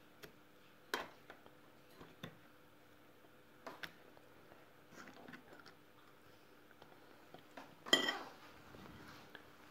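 A metal fork clinking and scraping against an opened tin can and a china plate as food is scooped out: a few scattered clicks, with the loudest, ringing clink about eight seconds in.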